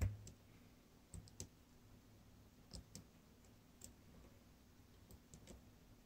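Faint, scattered clicks of a steel lock pick scratching on the side pins of a DOM RS8 cylinder lock held under tension, with one sharper click at the very start. The side pins are not binding yet.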